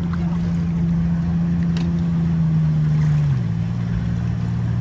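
An engine running steadily with a low hum, its pitch dropping about three and a half seconds in as the revs fall.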